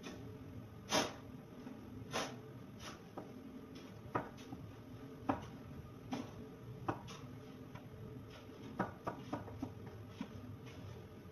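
Kitchen knife slicing tomatoes on a wooden cutting board: a series of short taps as the blade goes through and strikes the board, roughly one a second, coming closer together near the end.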